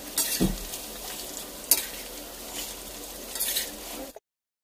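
Chicken pakoras deep-frying in hot oil with a steady sizzle, while a steel slotted spoon turns them over in the steel kadai, giving a few clinks and scrapes. The sound cuts off suddenly near the end.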